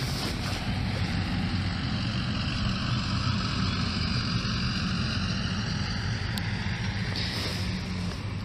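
A motor vehicle driving past, a steady engine and road rumble over a broad hiss.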